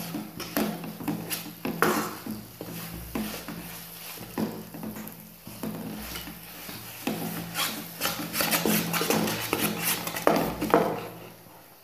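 Metal spatula scraping and stirring melting jaggery around a kadai, in irregular strokes against the pan. A steady low hum runs underneath.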